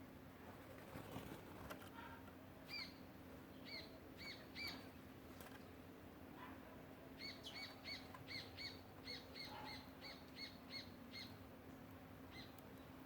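A songbird giving short, repeated call notes: a few spaced notes, then a quick run of about a dozen at roughly three a second, fading out near the end.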